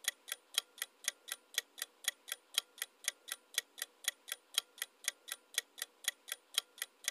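Clock-ticking sound effect for a quiz countdown timer: short, even ticks at about four a second, running while the timer counts down.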